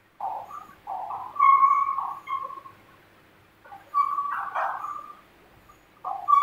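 Chalk writing on a blackboard: short scratchy strokes, three of them drawn out into steady high squeaks.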